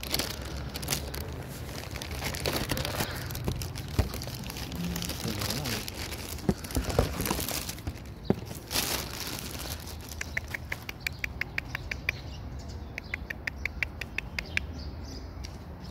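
A bag rustling and being handled right against the microphone, with scattered sharp knocks. Later, two quick runs of short, high, evenly spaced chirps, about seven a second.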